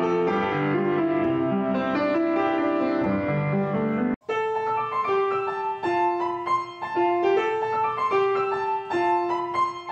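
Piano music: full, busy chords for about four seconds, then a sudden cut and a new piano tune with a simple melody of held notes.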